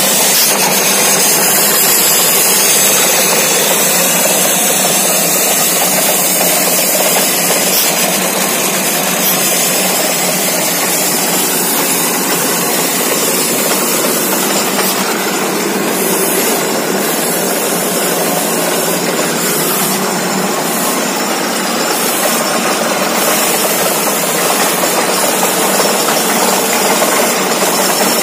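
Borewell drilling rig running while it drills: a loud, steady mechanical din with an even hiss that does not let up.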